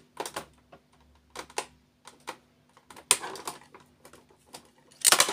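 Hand screwdriver working at the screws on a laser printer's fuser assembly: a run of irregular light clicks and scrapes of the tool on metal and plastic, turning into a louder clatter near the end.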